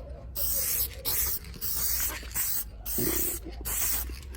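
Spray can of clear coat hissing in several bursts with short breaks between them, as a coat of clear is sprayed onto a restored headlight lens.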